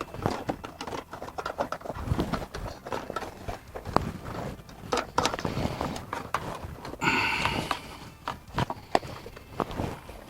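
Steel fish tape being pushed and worked through a tight channel in a van's floor: irregular scraping, clicks and knocks, with a brief louder scrape about seven seconds in. The tape is snagging and won't feed through; its end is worn.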